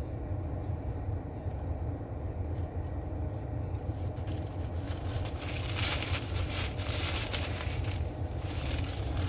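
Steady low hum of a parked car's engine and air conditioner running, heard from inside the cabin, with rustling and scraping from about the middle to near the end.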